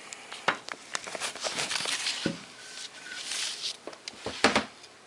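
Handling noise from a steering column turn signal switch and its wiring: a string of clicks and knocks with short bursts of rustling, and one louder knock about four and a half seconds in.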